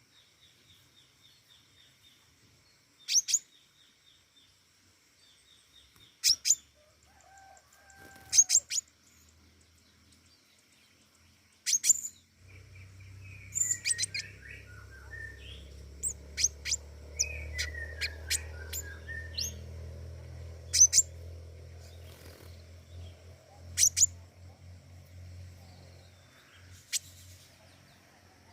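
A pentis raja songbird calling: short, sharp, very high chirps repeated every two to three seconds, with a brief fast trill near the start. A low rumble rises under the calls about twelve seconds in and fades about ten seconds later.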